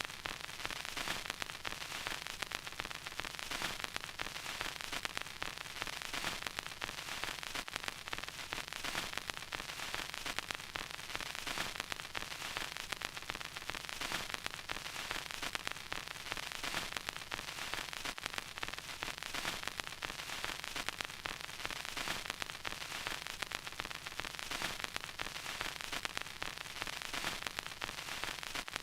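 Vinyl record crackle: a steady surface hiss with dense, irregular little clicks and pops throughout.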